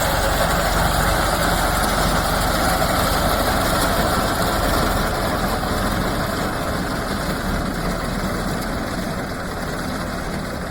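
Tractor engine running steadily while it drives a rear-mounted reaper, easing a little quieter over the second half.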